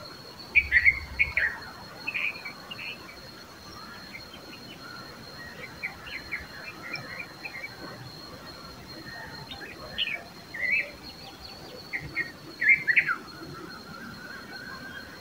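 Red-vented bulbuls calling in short, scattered bursts of chirps, loudest near the start and again in the last few seconds.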